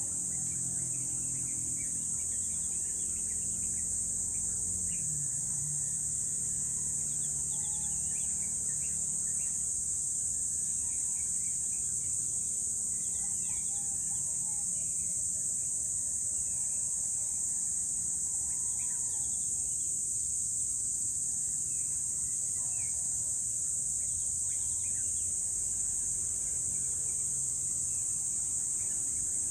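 Early-morning outdoor ambience: a steady high-pitched drone of insects, with many short bird chirps and calls scattered through it. A low steady hum runs underneath and is a little stronger in the first few seconds.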